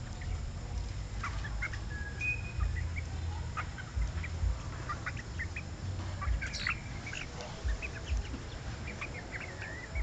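Flock of young chickens peeping and clucking while pecking at grain: many short, scattered chirps and a few brief gliding calls, over a low rumble on the microphone.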